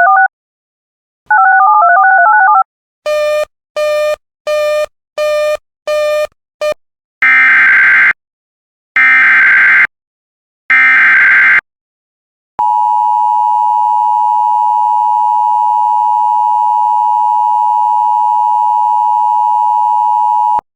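Emergency Alert System tones: two short stepping-tone bursts and seven quick beeps, then three one-second SAME data-header bursts a second apart, then the steady 1050 Hz NOAA Weather Radio warning alarm tone held for about eight seconds. These signal the start of a new weather alert.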